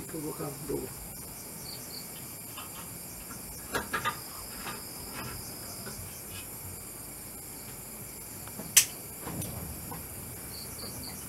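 Night insects, crickets among them, chirring steadily, with three soft knocks about four seconds in and one sharp click near nine seconds, the loudest sound.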